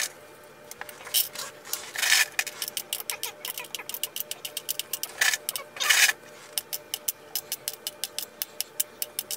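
M&M's candies being counted out by hand: quick small clicks as the pieces are moved one at a time, with a few louder rustling scrapes. Near the end the clicks come in an even run of about six a second.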